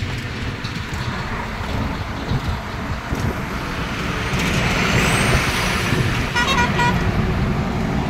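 Road and traffic noise heard from a moving motorcycle: a steady rumble with wind noise that swells louder about halfway through. A vehicle horn toots briefly near the end.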